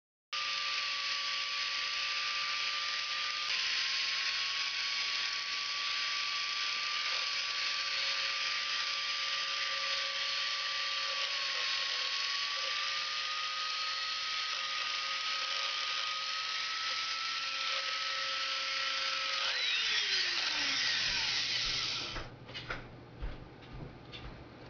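Dremel rotary tool with a diamond bit running at speed, a steady high whine; the owner calls the Dremel noisy and in need of service. About twenty seconds in it is switched off and spins down with falling pitch, followed by a few light clicks and taps.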